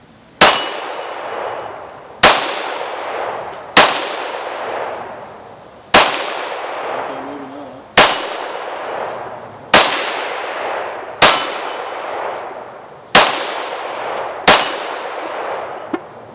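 FN Five-seveN pistol firing 5.7×28mm rounds, nine shots spaced about one and a half to two seconds apart, each followed by the ring of an AR500 steel target fading out.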